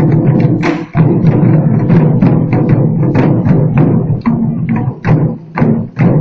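A troupe of Chinese barrel drums beaten together, loud and fast, in a steady flurry of strokes with brief breaks about a second in and again near the end.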